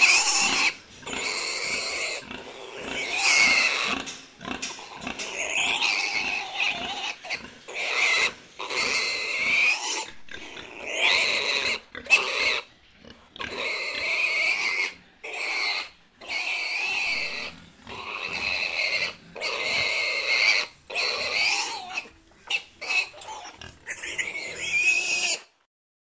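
Pigs squealing over and over: a string of high-pitched squeals, each about a second long, with brief breaks between them.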